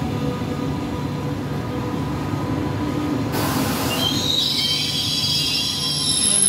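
A Frecciarossa high-speed electric train rolls past along the platform with a steady rumble. About three seconds in there is a short hiss, then a high metallic squeal from the running gear sets in about a second later and carries on.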